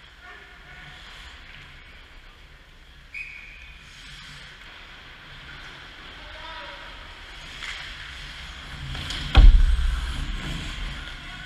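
Ice hockey play close to the goal: skates scraping the ice and players calling out. About nine seconds in, a loud thump at the net as players crash the crease, followed by a short low rumble.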